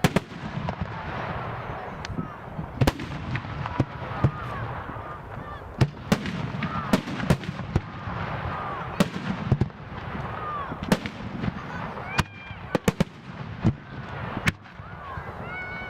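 Aerial firework shells bursting in quick succession: many sharp bangs over a continuous low rumble, with short arched pitched tones sounding among them.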